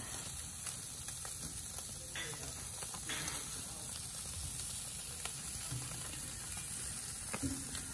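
Mackerel scad and a hamburger patty sizzling on a charcoal grill: a steady hiss with a few faint scattered ticks.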